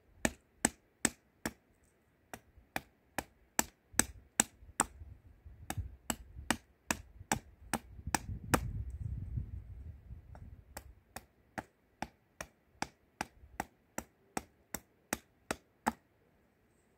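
A small hatchet chopping a wooden spoon blank against a chopping block: sharp, regular knocks about two and a half a second, pausing briefly near the start and stopping about a second before the end. A low rumble runs under the middle stretch.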